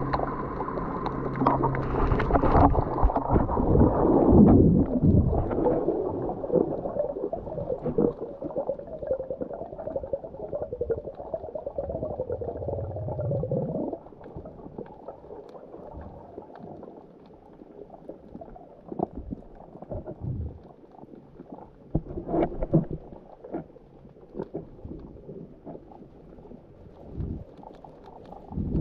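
Muffled underwater sound picked up by a camera in its waterproof housing: water rushing and gurgling. It drops much quieter about halfway through. After that come faint, scattered clicks and taps.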